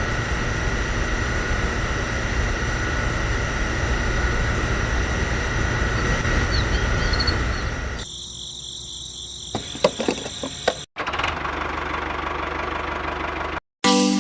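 Engine running steadily with a low rumble for about eight seconds. Then it cuts abruptly into two shorter stretches of running at a different pitch, with a few sharp clicks around ten seconds in.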